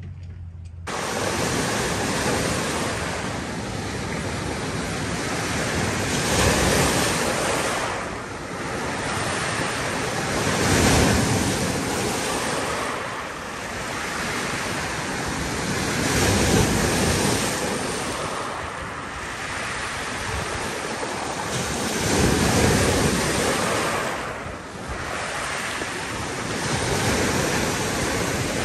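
Waves breaking and washing up a pebble beach, a surge every few seconds, starting about a second in.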